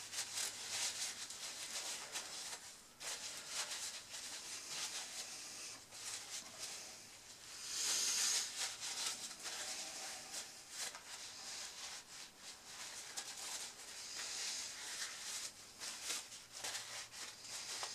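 Paper towel rubbing and wiping gunk off a metal door hinge pin in a run of short scrubbing strokes, louder for a moment about eight seconds in.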